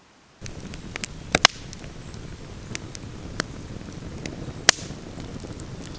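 Campfire crackling with sharp, irregular pops over a steady rumble of wind on the microphone.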